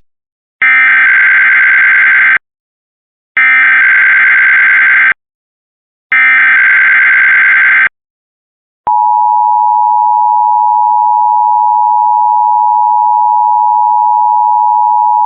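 Emergency Alert System header opening a monthly test: three identical screeching digital data bursts (the SAME header) about a second apart, then, about nine seconds in, the steady two-tone EAS attention signal.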